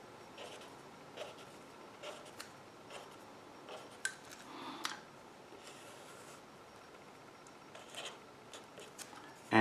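Felt-tip marker writing on paper: a string of short, scratchy strokes and light taps as letters are written one after another, with a few more strokes near the end as a line is drawn.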